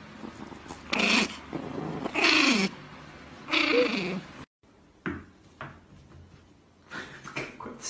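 Small white fluffy puppy snarling in three loud, pitched outbursts about a second each, falling in pitch. After a break, a few fainter short sharp sounds follow.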